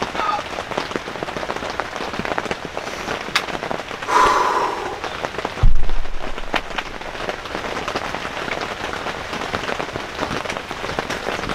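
Heavy rain pattering steadily on a hunting blind, with a single shotgun blast shortly before six seconds in, by far the loudest sound, followed by a low rumble.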